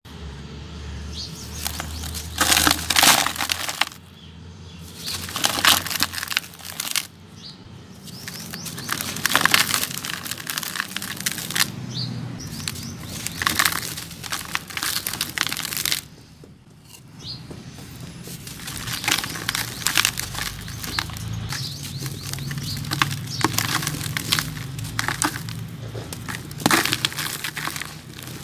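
Dry cement-sand lumps crushed and crumbled by hand in a plastic bucket: gritty crunching and crackling in bouts, with a few short pauses.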